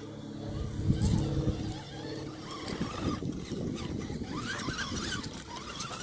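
A 1/10-scale RC rock crawler's sensored brushless motor and geared drivetrain whine steadily as the truck crawls over rocks. Its tyres and chassis knock and scrape on the stones, loudest about a second in.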